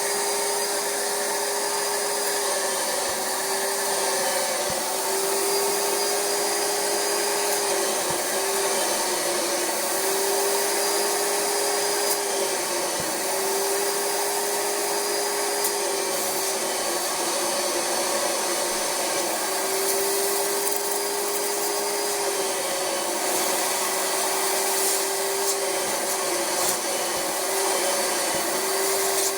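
Rug Doctor carpet cleaner running, its vacuum motor sucking through the upholstery hand tool, a steady rushing whine. A low hum in it breaks off briefly every couple of seconds.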